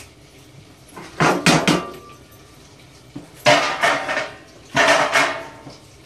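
Kitchen dishes and metal utensils being handled while tidying up. About a second in comes a quick run of metallic clinks, one of them ringing briefly, and around three and a half and five seconds come two longer clatters.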